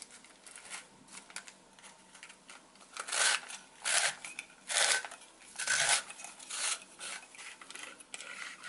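Paper receipts being cut into thin strips with a hand-held cutting tool. There are faint snips at first, then about six crisp cutting strokes from about three seconds in, roughly one every second.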